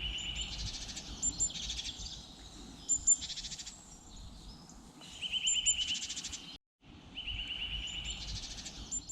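Songbirds singing in spring woodland. A phrase of a quick run of clear repeated notes, then a fast trill, comes again several times, with high thin calls over it and a low background rumble. The sound breaks off briefly a little past halfway.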